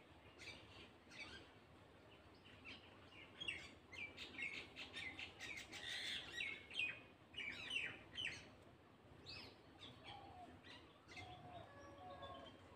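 Small birds chirping and twittering, a quick flurry of many chirps in the middle, then a few lower, sliding notes near the end.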